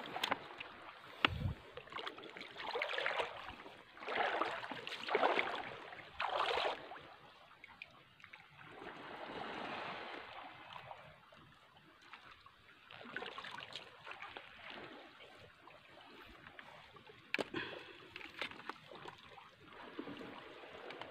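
Shallow seawater sloshing and splashing around the legs of a person wading on foot, in a run of soft swells lasting about a second each, with a few faint clicks between them.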